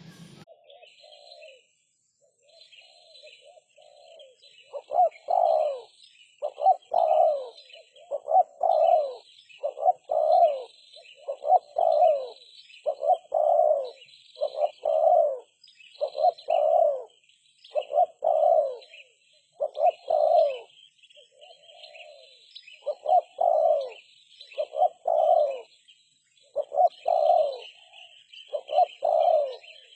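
Spotted dove cooing: a long run of repeated low coo phrases, each a pair of notes coming about every second and a half, soft at first and much louder from about five seconds in. Small birds chirp faintly behind it.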